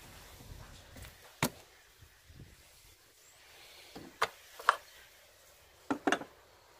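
Sharp plastic clicks and taps from handling an oil bottle cap and the engine's oil filler cap: one click about a second and a half in, then two pairs of clicks near four and six seconds.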